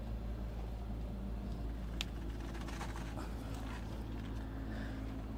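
Digital torque-angle wrench being turned on a rocker arm bolt: faint clicking and handling noise with one sharp click about two seconds in, over a steady low hum.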